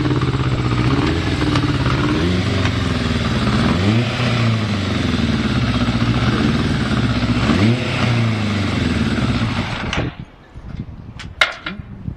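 Yamaha FZR1000's inline-four engine idling unevenly, as expected with its carburettors not yet adjusted, with two short revs about four and eight seconds in. The engine cuts off near the end, and a couple of sharp clicks follow.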